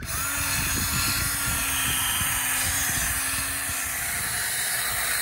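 Cordless drill spinning a foam buffing pad against a plastic headlight lens to polish out the haze, a steady whirring hiss.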